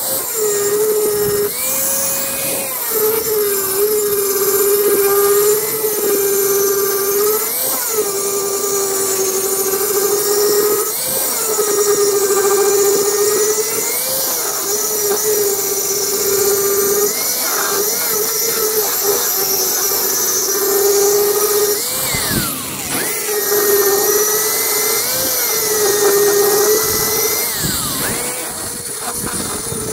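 Electric angle grinder grinding steel. The motor whine sags in pitch while the disc bears on the metal and briefly rises each time it is lifted off, every few seconds.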